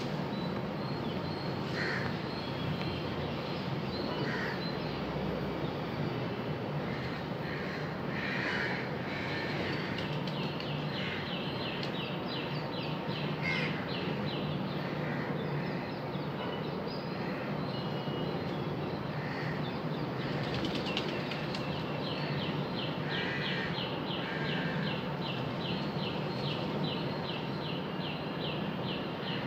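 Outdoor bird sounds over a steady background hum: feral pigeons' wings flapping now and then, short calls from other birds, and from about a third of the way in a fast, regular run of high chirps that grows denser in the second half.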